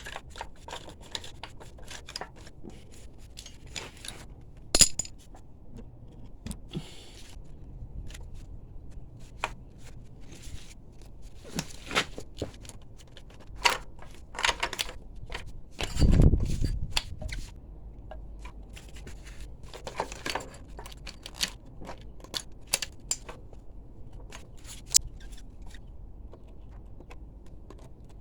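Metal hand tools and motorcycle parts clinking, tapping and scraping in irregular, scattered knocks, with one heavier thud a little past halfway.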